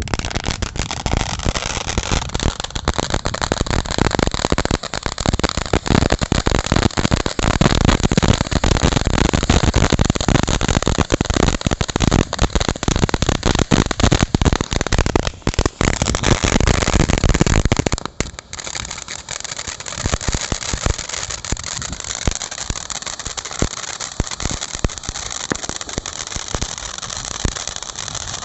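Consumer firework fountain spraying with a dense, rapid crackling over a rushing hiss. About eighteen seconds in it drops to a lower, steadier crackle.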